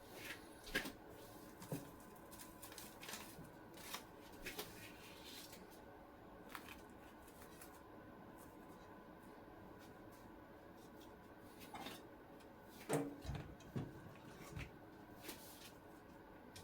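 Quiet kitchen handling sounds of sushi-roll preparation: scattered soft taps and clicks of utensils and ingredients being handled, over a faint steady hum. A louder cluster of knocks comes late on.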